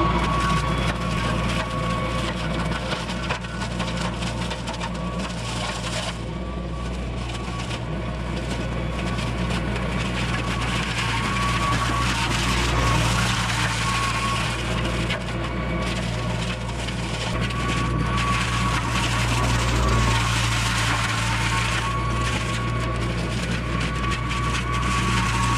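Compact tractor running with a PTO-driven Baumalight forestry mulcher, the drum grinding through brush and small wood. A steady engine hum and a steady high whine sit under dense snapping and cracking of wood.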